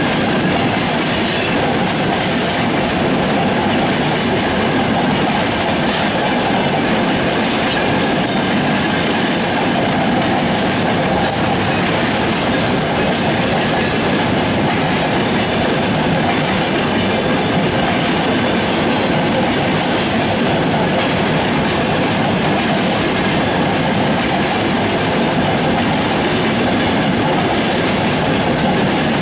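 Wagons of a freight train, covered hoppers and boxcars, rolling past close by at a steady speed: a loud, unbroken noise of steel wheels running on the rails and the wagon bodies rattling.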